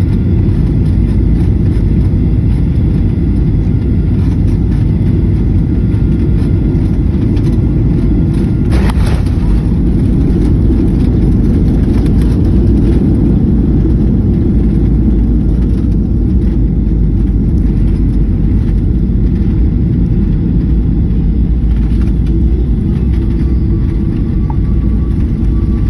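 Airliner cabin noise during a landing: a steady, loud low rumble of engines and airflow heard from inside the cabin, with a brief burst of noise about nine seconds in.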